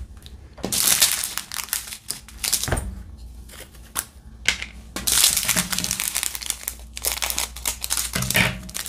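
Small plastic bags of diamond-painting drills crinkling as they are handled, in several bursts, with sharp clicks from a small plastic storage container and tray. Near the end scissors cut open one of the drill bags.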